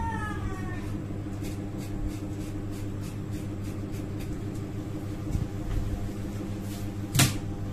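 Steady low electric hum, with a brief falling tone at the very start, scattered faint clicks, and one sharp loud click near the end.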